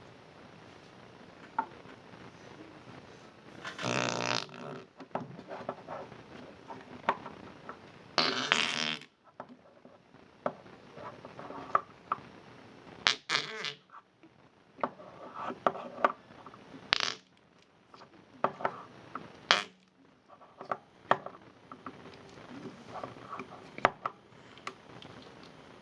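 Noise putty pressed and squeezed in its pot, making wet fart-like squelches: two long ones about four and eight seconds in, then a string of shorter squelches and sharp pops.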